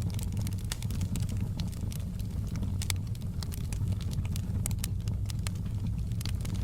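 Wood fire burning in a fireplace: a steady low roar of flames with frequent irregular crackles and pops.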